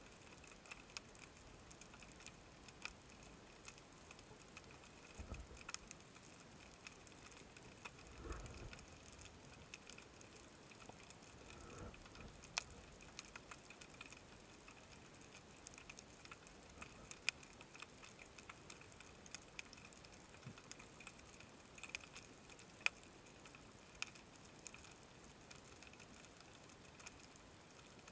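Quiet underwater ambience heard through a diving camera's housing: a faint hiss with scattered, irregular sharp clicks and ticks, and two brief low thumps about five and eight seconds in.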